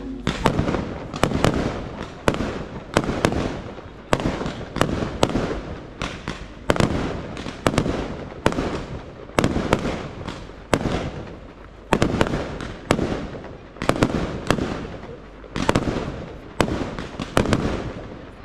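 Aerial fireworks shells bursting in a continuous run of sharp bangs, one or two a second, each followed by a rolling echo.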